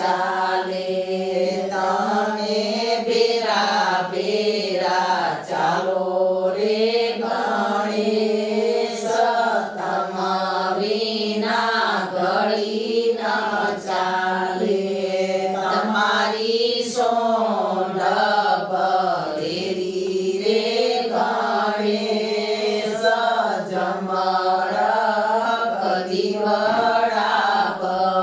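A group of women singing a traditional Gujarati wedding song (lagnageet) of the Kutch Sorathiya-Ahir community together, with voices only and no instruments. The phrases rise and fall in a steady repeating melody.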